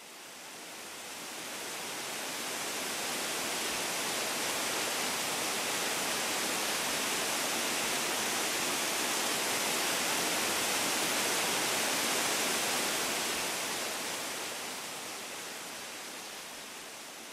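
Steady rushing of falling water from a small garden waterfall, an even hiss with no distinct splashes. It swells in over the first few seconds and eases down again in the last few.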